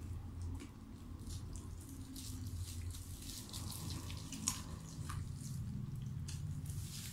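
Eating at a table: wet chewing and smacking with the crinkle and rustle of paper food wrappers being opened, heard as a string of soft clicks and crackles over a low steady hum.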